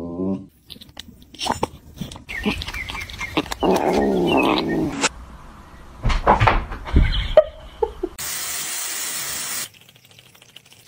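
A pet animal's calls mixed with short knocks and clatter, then a steady hiss lasting about a second and a half near the end.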